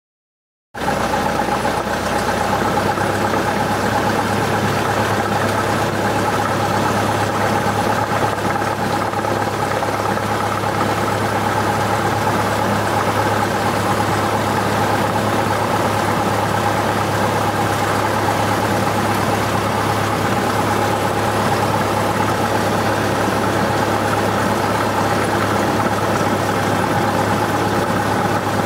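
Cessna 172's piston engine and propeller running steadily at low power while taxiing, heard from inside the cabin. The sound cuts in suddenly about a second in and holds one even pitch throughout.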